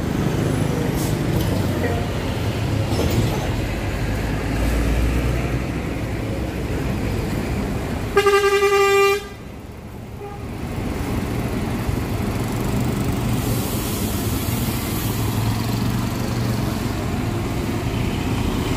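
Diesel engine of a Mercedes-Benz OH 1626 coach running as the bus pulls away, with a single horn blast about eight seconds in that lasts about a second.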